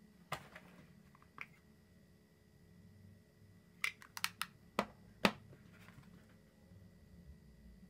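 A scatter of small sharp clicks and taps, like makeup brushes and plastic cases being picked up and set down on a table: a couple early on, a quick run of four or five about four seconds in, then two louder knocks just after.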